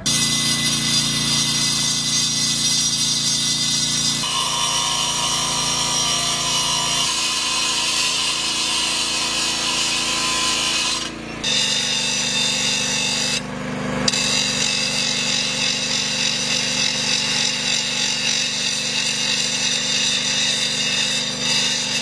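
Hydraulic grinder with a metal cutting wheel running at full speed, starting abruptly. Its steady whine shifts in pitch a few times and dips briefly twice in the middle.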